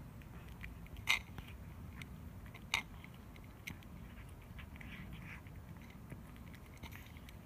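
Calico cat eating from a bowl: crisp, irregular chewing and crunching clicks, two of them louder about one and nearly three seconds in.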